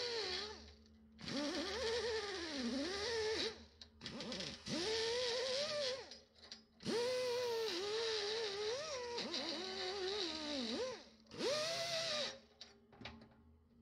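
Pneumatic die grinder with a wire cup brush scrubbing a small metal part. The air motor whines with a hiss of exhaust air, its pitch sagging and recovering as the brush is pressed onto the metal. It comes in about five runs of one to four seconds with short pauses between.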